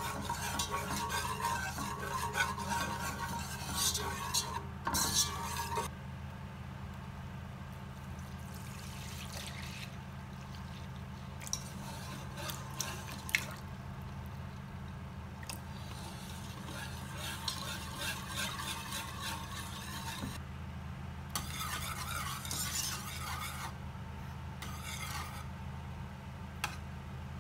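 Wire whisk stirring béchamel sauce in a granite-coated pot, scraping against the pot, busiest in the first few seconds. Milk is poured in midway, with more bursts of whisking later, over a steady low hum.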